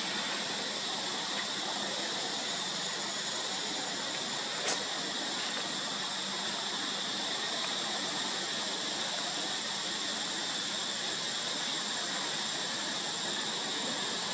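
Steady, high-pitched drone of forest insects, holding two constant shrill pitches, with a single sharp click about five seconds in.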